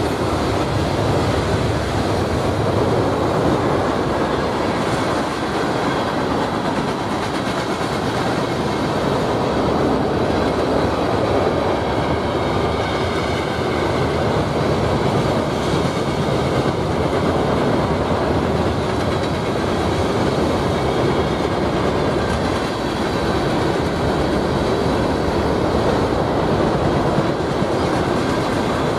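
Freight train cars (tank cars, covered hoppers and boxcars) rolling past, a loud steady rumble and rattle of steel wheels on the rails.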